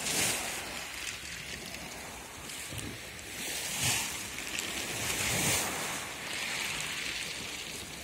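Small waves on a calm sea washing in on the shore, the hiss swelling and ebbing every second or two, with some wind on the microphone.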